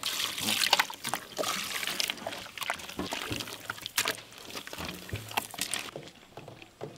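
Water poured from a steel mug into thick flour dough in an aluminium pot, with a hand squelching and sloshing through it, mixing it into a wet batter. The sounds are irregular and grow fainter toward the end.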